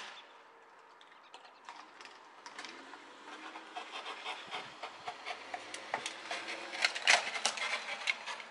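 A car crashing into the back of a parked truck: a run of irregular clatters and scrapes that grows denser, with the loudest crunch about seven seconds in.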